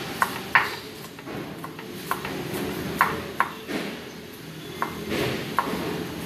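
Kitchen knife chopping garlic on a wooden cutting board: sharp knocks of the blade striking the board, coming irregularly, sometimes two within half a second and sometimes a second or more apart.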